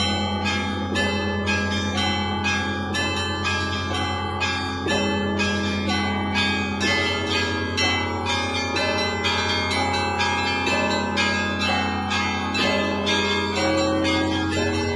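Russian Orthodox church bells of the Spaso-Preobrazhenskaya bell tower in full peal. The small bells are struck in a fast, steady rhythm of several strikes a second, over the continuous low hum of a large bell.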